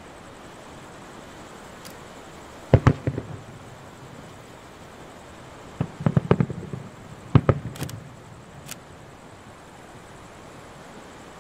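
Aerial firework shells bursting: a single sharp bang a few seconds in, a quick cluster of bangs around the middle, and another bang about a second later. Each trails off in a short echo.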